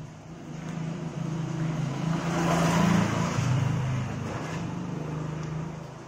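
A motor vehicle engine passing close by: its hum and rush of noise grow louder to a peak about three seconds in, then fade.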